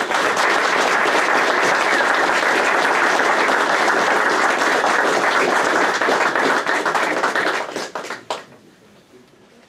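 Audience applauding, a dense steady clapping that dies away about eight seconds in.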